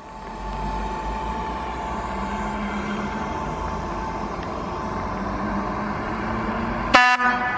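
ČD class 460 electric multiple unit approaching, its running noise growing louder, with a low rumble and a thin steady whine. A brief, sharp, pitched blast, the loudest sound, comes near the end.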